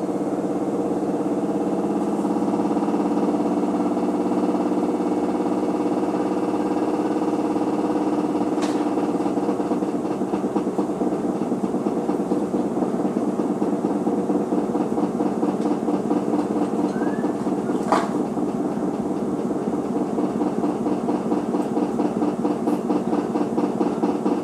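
Front-loading washing machine running: a steady motor hum that takes on a rapid rhythmic pulse from about ten seconds in, with a couple of sharp clicks along the way.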